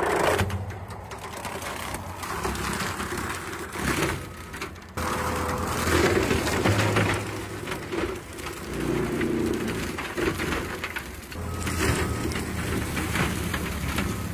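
Diesel engine of a New Holland compact track loader running under load while its forestry mulcher head grinds up cedar trees and brush. The grinding surges and eases irregularly, with a sudden jump in level about five seconds in.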